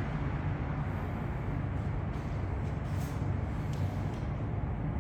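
A steady, low mechanical rumble that does not change.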